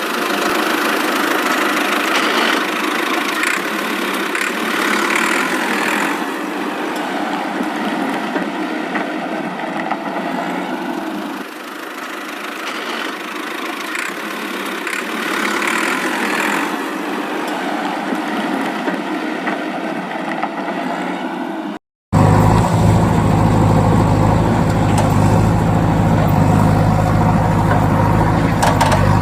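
Vehicle engine running steadily. About three-quarters of the way through it cuts to a louder, deeper steady engine hum.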